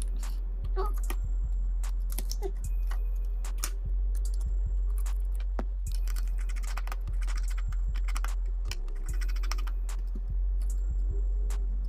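Many light clicks, taps and scrapes of small tools on plastic and metal phone parts, over steady background music with a low bass hum.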